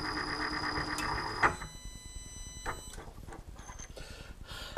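Milling machine spindle running with a steady whine. About a second and a half in a click comes and the sound drops, and a thin high whine fades away over the next second or so, with a few light clicks after.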